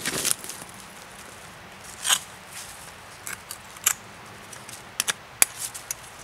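Dry leaf litter and twigs rustling and crunching under a person's knees and gloved hands on the forest floor, with a short crunch at the start and another about two seconds in, then a string of sharp little snaps and clicks.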